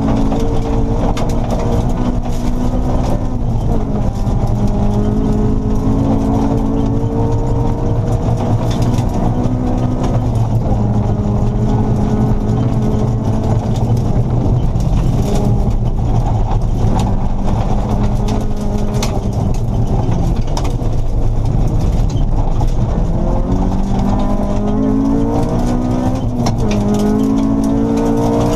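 Honda Civic rally car's engine heard from inside the cabin, climbing in pitch under hard acceleration and dropping back at each gear change or lift, several times over. Tyre noise on gravel and sharp clicks of stones hitting the car run beneath it.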